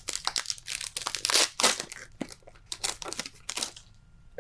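Foil Pokémon card booster pack wrapper being torn open and crinkled by hand: a dense run of crackles and rips that stops just before the end.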